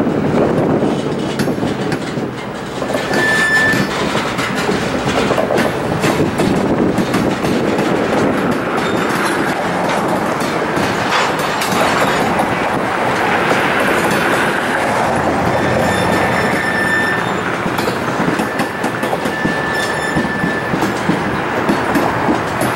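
Covered hopper freight cars rolling slowly over yard track, with a steady rumble of steel wheels and clicks over rail joints. Brief high-pitched wheel squeals come about three seconds in and again around sixteen and twenty seconds.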